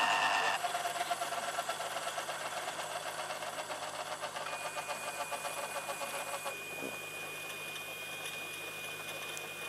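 Turbine of a large-scale Eurocopter EC-120 model helicopter (a Jakadofsky Pro 6000) winding down on the ground with its main rotor slowing, a fast rhythmic mechanical whirr. It drops suddenly about half a second in and then fades gradually, with a faint thin whine joining partway through.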